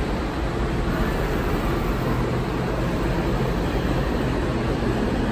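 Steady machinery hum and noise from workshop equipment, with a constant low electrical hum underneath.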